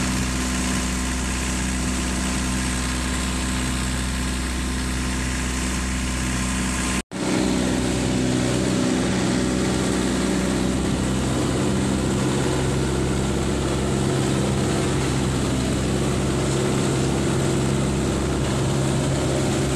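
Mitsubishi 4DR5 four-cylinder diesel inboard engine of a flatboat running steadily at speed under way. The sound drops out for an instant about seven seconds in, then the engine carries on just as steadily.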